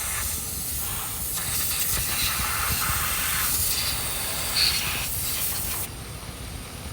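Air blowing hard from a nozzle with a steady hiss, drying water out of a truck's engine bay around the ignition coils to stop a moisture-caused misfire, over the low rumble of the idling engine. The hiss drops away near the end.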